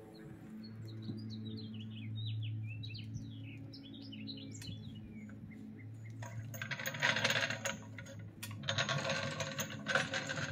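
Arcan aluminium floor jack rolled out from under the car, its metal casters rattling and grinding over the concrete floor in two pulls in the second half. Birds chirp in the first half over a steady low hum.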